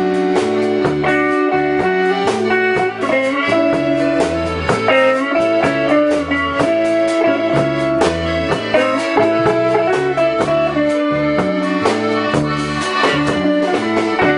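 Live band playing an instrumental passage with no singing: electric guitar, electric bass, drum kit and accordion. The bass steps from note to note about twice a second under held accordion and guitar notes, with a steady drum beat.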